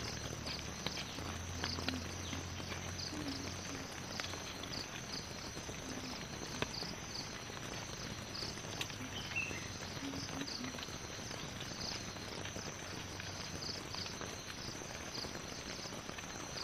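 Steady high insect chirring with a regular pulsing trill, over an even patter of rain on the tent. A few faint clicks break through now and then.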